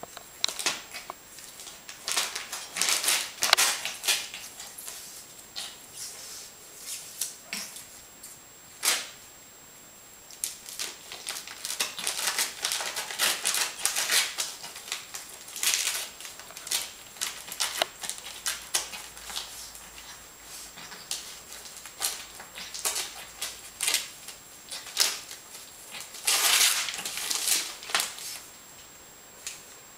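Small long-haired puppy tearing and chewing magazine paper: irregular crisp rips and crinkling rustles in quick clusters, with short pauses between spells.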